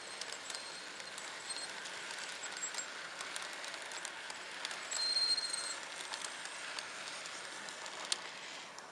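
HO scale model passenger cars rolling along the track, a steady rolling hiss with frequent clicks of wheels over rail joints. About five seconds in there is a brief high squeal, the loudest moment.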